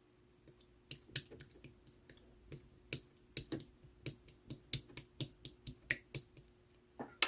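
Clear slime being pressed and worked by hand, giving sharp, irregular clicks and pops, about three a second, some much louder than others.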